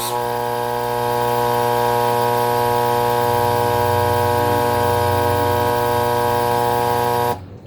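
Freshly rebuilt Alita AL-60 linear air pump test-running with its lid off: a loud, steady electric hum, showing the rebuild works. It cuts off suddenly near the end.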